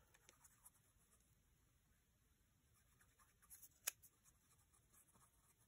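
Near silence: faint rustling of a paper scrap and a plastic glue squeeze bottle being handled, with one sharp click about four seconds in.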